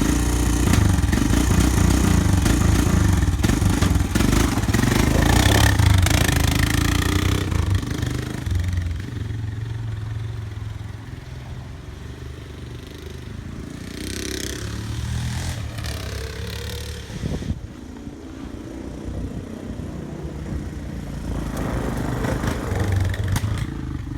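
Honda Recon 250 ATV's single-cylinder four-stroke engine running as the quad is ridden. It is louder for the first several seconds, then quieter, and the engine note rises and falls a few times.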